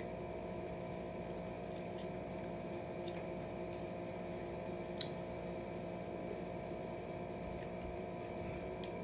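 Chewing and light clicks of a plastic fork over a steady mechanical hum of background noise with several fixed tones. One sharp click about five seconds in.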